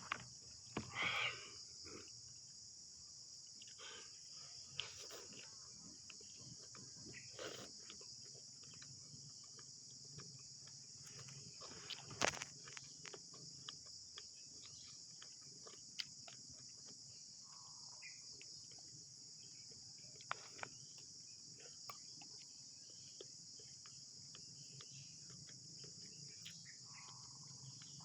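Steady high-pitched chorus of crickets, with scattered soft clicks and knocks.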